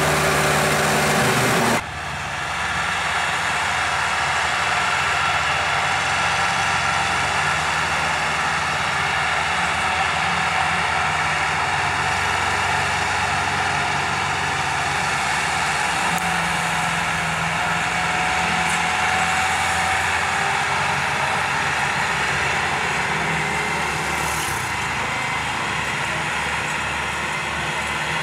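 Massey Ferguson 385 tractor's four-cylinder diesel engine running steadily as it pulls a heavily loaded trolley. The sound changes abruptly about two seconds in, then stays even.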